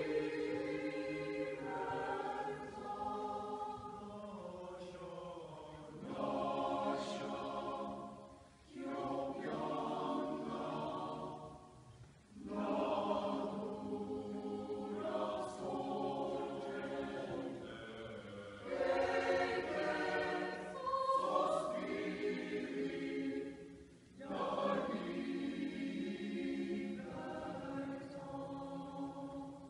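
Mixed choir of men and women singing unaccompanied in several voices, in long phrases with short pauses between them.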